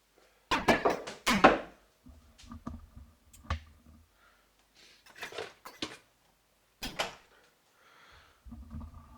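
Kitchen handling noises: a loud burst of clatter, then softer knocks and bumps with a few sharp clicks, like pots, lids and cupboards being moved about.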